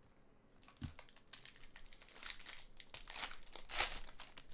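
Foil wrapper of a trading-card pack being torn open by hand, crinkling and crackling for about three seconds and loudest near the end. A soft thump comes about a second in.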